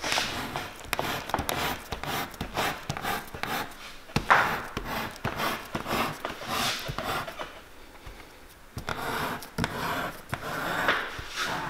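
Repeated scraping strokes of a hand tool cutting along a strip of leather laid on a wooden workbench, shaping a storm welt by hand. The strokes come about one or two a second, with a short pause about two-thirds of the way through.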